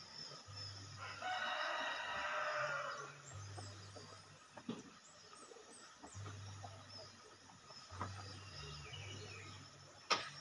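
A rooster crows once, a call of about two seconds starting about a second in. Near the end there is one sharp knock.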